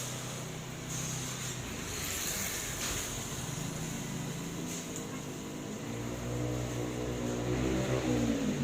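Engine of a motor vehicle running nearby, growing louder over the last few seconds as its pitch shifts, over a steady high hiss.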